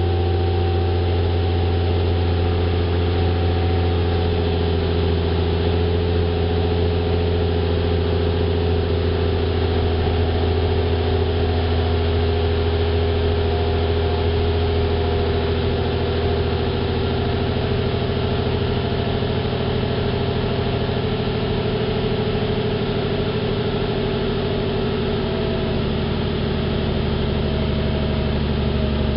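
A 2006 Nissan 350Z's 3.5 L VQ35DE V6 idling steadily through a Nismo S-Tune cat-back exhaust, heard at the tailpipes. The idle eases slightly lower partway through, typical of the fast idle after a cold start settling down.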